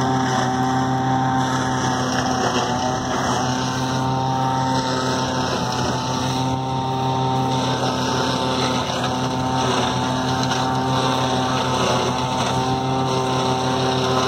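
Tractor engine held at high, steady revs, driving a forage chopper that is chopping whole corn plants for silage: a loud, steady machine drone.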